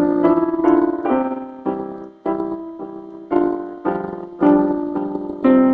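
Electronic keyboard on a piano voice, playing a simple beginner piece: single notes and chords in the middle register are struck one after another, each ringing and fading before the next.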